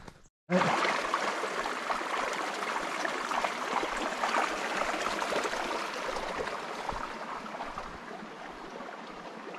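Small stream running with a steady babble of water. It starts about half a second in, loudest at first, and slowly fades.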